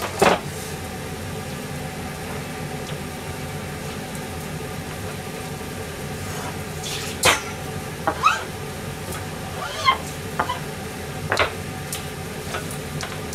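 Pan of nishime vegetable stew and a small pot of water on a gas stove, heating up but not yet at a full rolling boil: a steady hiss of bubbling liquid and flame, with a few scattered sharp pops and clicks.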